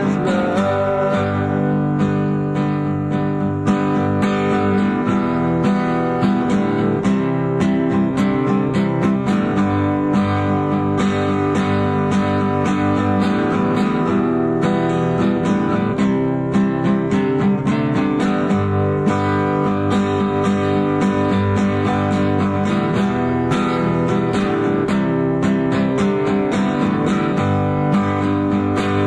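Acoustic guitar strummed in steady chords, an instrumental stretch of a song with no singing, from a tape recording.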